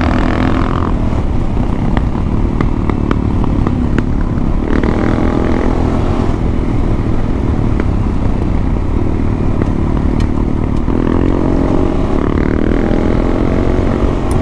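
Adventure motorcycle engine running under way, its revs climbing in stretches as it pulls, over a steady low rumble, with a few sharp clicks.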